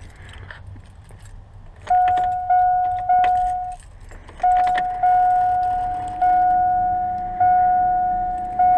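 Keys jangling at the ignition of a 2001 GM pickup, then the truck's dashboard warning chime dinging over and over as the key is switched on before cranking. The first three dings come quickly, there is a short break, and the rest come about once a second.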